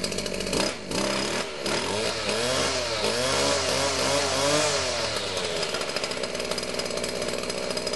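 Husqvarna 235R brushcutter's two-stroke engine running with a freshly rebuilt and adjusted carburetor: revved up and down several times in quick succession, then settling back to a steady idle.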